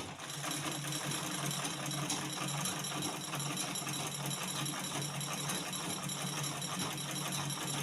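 Manual black-head Butterfly sewing machine, driven by foot pedal, running steadily as it stitches a curved line. The needle mechanism makes a rapid, even clatter.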